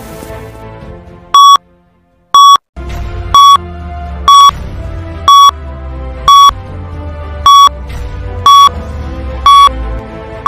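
Quiz countdown timer beeping once a second, nine short electronic beeps over background music, which drops out briefly near the start.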